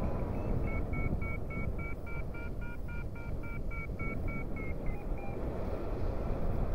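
Paragliding variometer beeping its climb tone, short rapid pips about three a second while the glider rises in a thermal. The beeps thin out and drop lower about five seconds in as the lift weakens. Wind rumbles on the microphone underneath.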